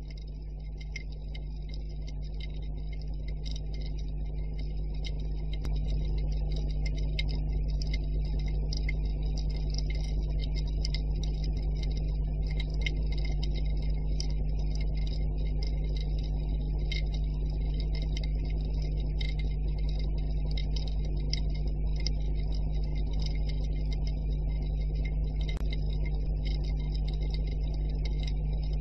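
Underwater ambience: a steady low rumble and hum with a dense, irregular crackle of small clicks over it, fading in over the first six seconds.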